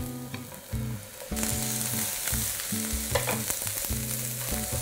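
Sliced onions frying in hot oil in a frying pan, a steady sizzle that jumps up sharply about a second and a half in, with wooden chopsticks clicking and scraping against the pan as the onions are stirred.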